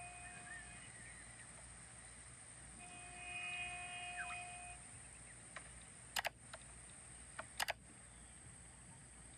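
A vehicle horn sounds in two long, steady blasts: one ends under a second in, the other runs from about three to nearly five seconds in. Later come two pairs of sharp clicks, about a second and a half apart.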